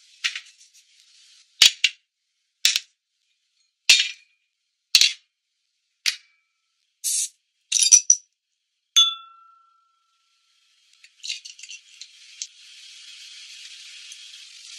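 A series of sharp, high clicks and clinks about a second apart, then a clink with a short ringing tone, as bottled beer is poured into a glass. From about twelve seconds in, the beer's foam fizzes with a steady hiss.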